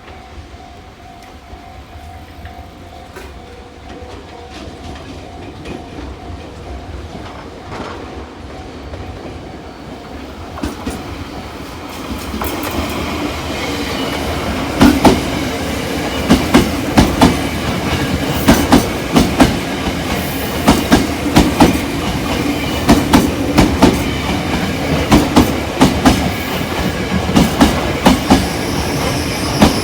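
Electric commuter train approaching and growing steadily louder for about twelve seconds, then running close past with a rhythmic clickety-clack of wheels over the rail joints.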